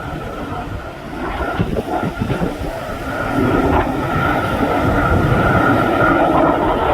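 Jet aircraft noise swelling louder over the first few seconds, then holding steady with a high tone over the roar. Strong wind buffets the microphone.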